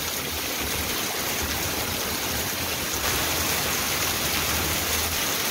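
Heavy rain pouring steadily onto the ground and pavement, with rainwater runoff running across the ground. It gets a little louder about three seconds in.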